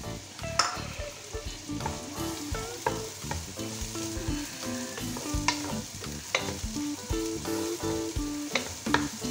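Chopped onions sizzling in hot oil in a nonstick pot while a wooden spatula stirs them, with frequent sharp scrapes and knocks of the spatula against the pan. The onions are being sautéed toward golden brown.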